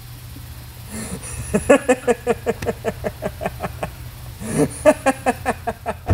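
A person laughing hard in two bouts of rapid, pulsing ha-ha-ha, about five pulses a second; the second bout starts about four and a half seconds in. A low steady hum runs underneath.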